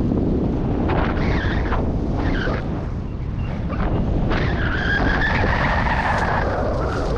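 Heavy wind buffeting the microphone, with a high whistling tone that swells and fades in the second half.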